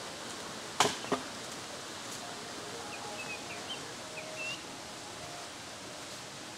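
Outdoor rural ambience: a steady hiss with a few short bird chirps in the middle, and two sharp knocks close together about a second in.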